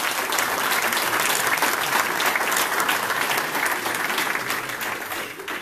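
A small group of people clapping their hands in applause. The clapping is dense and steady and dies away near the end.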